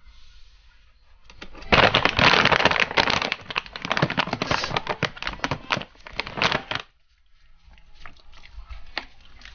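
Husky puppy biting and pawing at a large plastic dog-food bag, the plastic crinkling and crackling loudly. It starts about a second and a half in and stops abruptly about seven seconds in.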